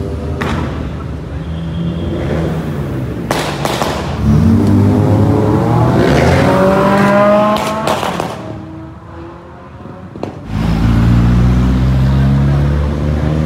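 Performance car engines revving hard as cars accelerate away. One engine climbs steeply in pitch in the middle, a few sharp cracks cut through, and a deep, loud engine comes in near the end after a brief quieter spell.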